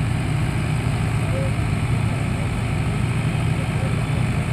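Two diesel tractors, hitched back to back for a tug-of-war pull, running steadily with a low, even drone that neither rises nor falls.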